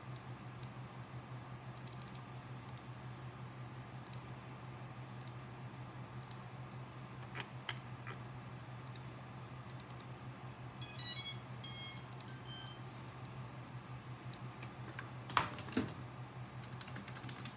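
Clicking at a computer: scattered single mouse clicks, then three short bursts of rapid ticking, and two louder clicks close together near the end. A steady low hum runs underneath.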